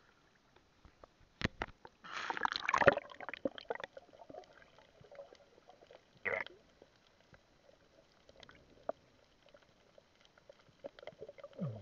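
Water splashing and churning as the camera plunges from the sea surface under water, the loudest part about two seconds in. After that come muffled underwater sounds, scattered clicks and another short splash burst about six seconds in.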